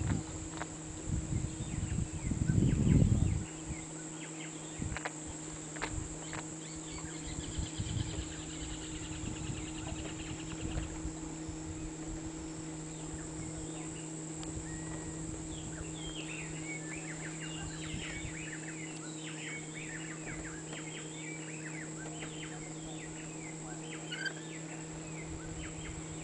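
Wild outdoor ambience of the Araguaia: many short bird calls, thickest in the second half, with a fast trill about a third of the way in, over a steady high whine and a low hum. Low rumbling thumps in the first few seconds.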